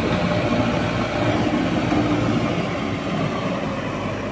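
Diesel engine of a JCB 3DX backhoe loader running steadily under load as it drives with a loaded front bucket.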